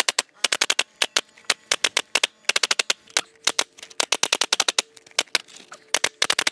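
Pneumatic nail gun firing rapidly, a long string of sharp cracks coming in quick runs of several shots a second, as it fastens diamond metal lath to the wall.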